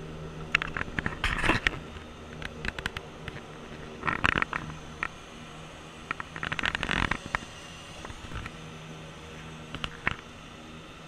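Aircraft cockpit while taxiing: a steady low engine hum, broken by several short bursts of rustling and clicks, the loudest about one second in and around seven seconds.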